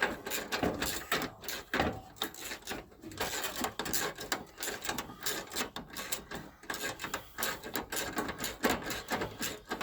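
3/8-inch drive hand ratchet clicking rapidly as it is swung back and forth, loosening a tight bolt.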